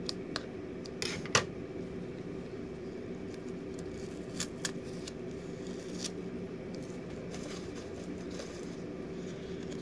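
Scissors snipping packing tape around a small orchid pot: a few sharp clicks and snips, the loudest about a second and a half in, then scattered lighter clicks as the tape is handled, over a steady low hum.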